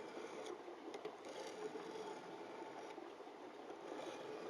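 Faint, steady grinding as a knife blade is drawn across a wetted coarse diamond sharpening stone, guided by an angle jig.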